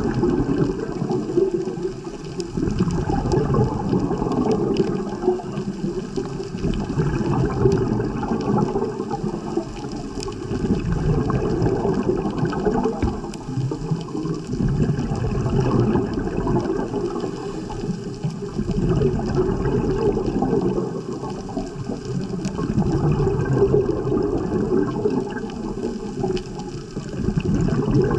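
Underwater ambient noise on a dive camera: a low rushing of water that swells and fades every few seconds.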